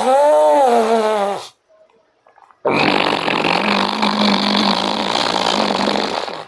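Ujjayi pranayama breathing: a person breathing through a narrowed throat with a rough, snoring-like rasp. The first breath ends in a voiced tone that rises and falls, and after about a second's pause comes one long rasping breath lasting about three and a half seconds.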